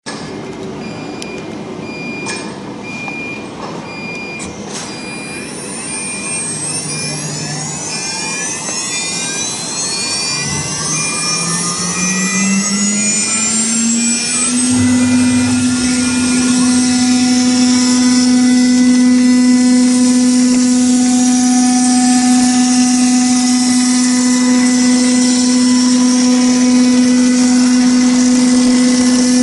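6 kW water-cooled CNC router spindle spinning up, its whine rising in pitch until about 15 seconds in and then holding steady, as the end mill cuts a circle out of 3 mm aluminium sheet.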